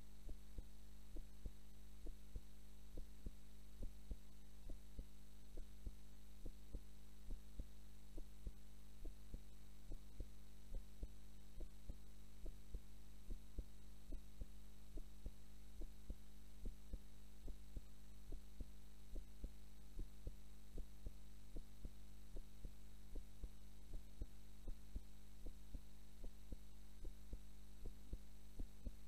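A sleeping woman's heartbeat recorded close up: a steady, regular beat of soft low thumps over a constant low hum.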